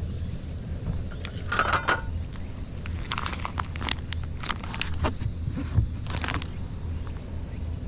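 Plastic food pouch crinkling and crackling as it is picked up and handled, in bursts, over a steady low rumble from a canister gas stove burner heating a pot of water.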